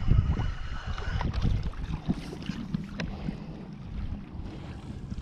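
Wind buffeting the microphone in uneven gusts, with the thin whine of a spinning reel being wound that stops about a second in; a few sharp clicks follow.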